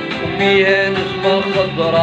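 A man singing with a wavering, sliding melody over his own plucked, steel-strung pear-shaped lute.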